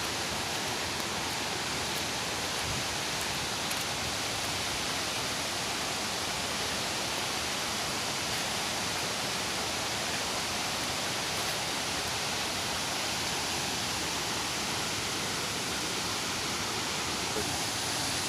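Steady rush of a small rain-fed stream falling down a rocky slope as a waterfall.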